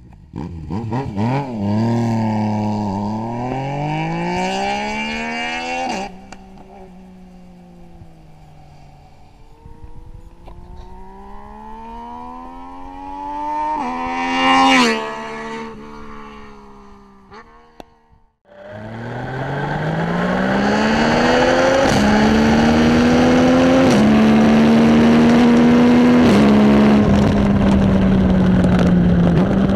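Yamaha MT-09 three-cylinder engine through a custom full exhaust system, accelerating hard through the gears, its pitch climbing and stepping at each shift. Midway it comes up from a distance and passes by with a quick rise and fall in pitch. Near the end it is loud and close, pulling through several more gear changes.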